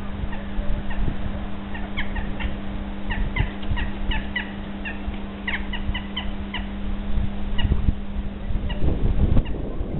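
Jackdaws calling: many short, sharp calls in quick succession, thickest from about two to seven seconds in and thinning out near the end, over a steady low hum and low rumble.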